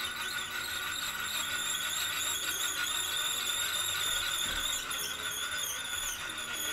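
A wooden dowel spun fast in a drill chuck and pressed against a wooden block, giving a steady high-pitched friction whine that wavers slightly: an attempt to make fire by friction.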